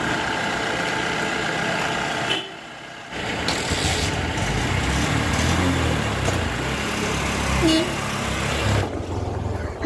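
Heavy diesel engine running, its pitch rising and falling, with a short quieter break about two and a half seconds in.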